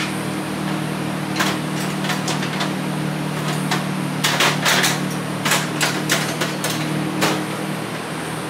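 A string of sharp metallic clicks and taps from a screwdriver and hand tools working on a VW engine, thickest around the middle, over a steady low hum.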